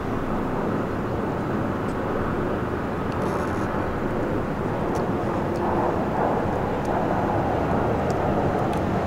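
R62A subway train approaching along an elevated track, a steady low rumble that builds gradually.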